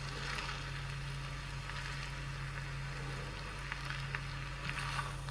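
Spätzle and melting cheese sizzling faintly in a pan on low heat, with a few small crackles, under a steady low hum.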